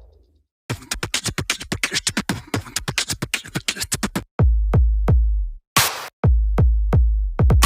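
Electronic music with a drum machine. A brief silence opens it, then a rapid run of clicky beats, then heavy bass hits with short breaks between them.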